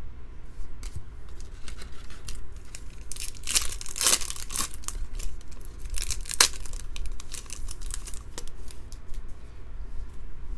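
Foil wrapper of a 2015 Bowman Draft trading-card pack being torn open and crinkled, loudest in a burst of tearing about four seconds in and a sharp crackle a couple of seconds later.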